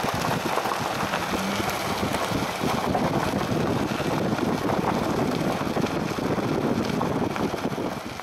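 Wind rushing over the microphone with the road noise of a vehicle driving along a dirt road, a steady rushing that holds at one level.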